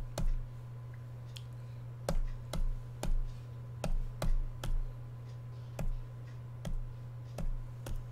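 About a dozen irregular clicks, one or two a second, as a search query is typed letter by letter, many with a soft low thump underneath, over a steady low electrical hum.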